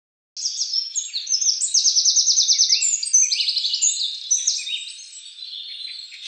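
Several songbirds chirping and trilling, with a burst of rapid trills at about ten notes a second. The calls start just under half a second in and fade toward the end.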